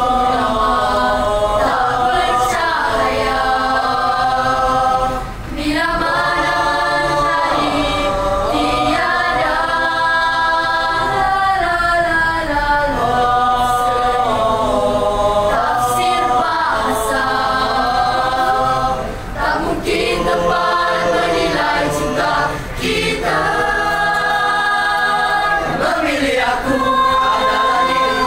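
Several voices singing together like a choir, in long sung phrases with brief breaks between them and little audible accompaniment.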